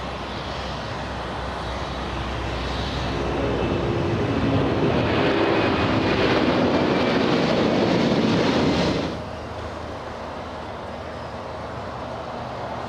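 Aircraft engine noise that swells over several seconds, with a steady tone running through it, then drops off suddenly about nine seconds in to a lower, steady rumble.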